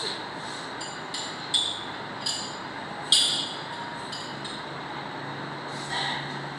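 Ceramic cups, saucers and teaspoons clinking as a tea setting is laid from a serving tray: a series of light clinks, the sharpest about three seconds in.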